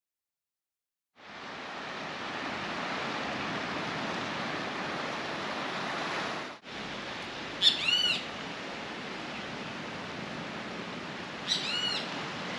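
A second of silence, then a steady wash of ocean surf on a rocky beach. After a short break the surf goes on more quietly, with a short bird call a little past the middle and another near the end.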